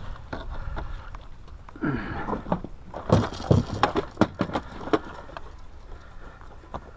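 A landing net holding a freshly caught catfish is swung into an aluminium jon boat, knocking and clattering against the hull, with a burst of knocks about three to five seconds in.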